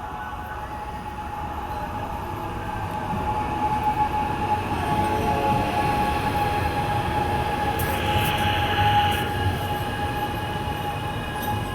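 A train passing through a station, its rumble growing louder to a peak about nine seconds in and then easing, with a steady high whine throughout.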